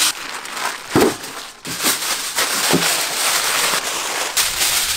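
A plastic bag crinkling and rustling as it is handled, a dense crackle with a few soft knocks.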